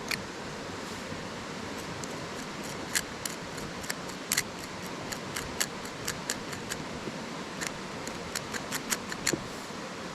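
Twigs and kindling crackling and snapping in irregular sharp clicks while a campfire is being coaxed alight, over a steady rush of river water.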